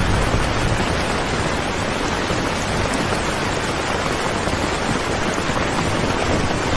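Steady heavy rain falling, a dense even hiss, with a brief low rumble right at the start.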